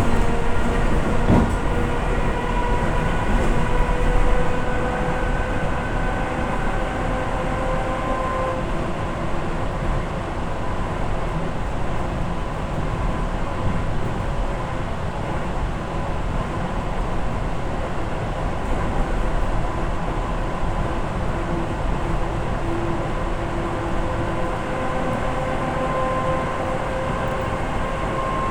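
Train on the move: a steady rumble and running noise, with a faint whine that drifts slowly in pitch.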